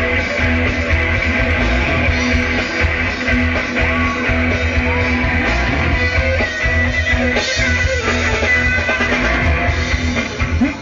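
Instrumental rock music led by guitars over a steady bass backing, with no vocals.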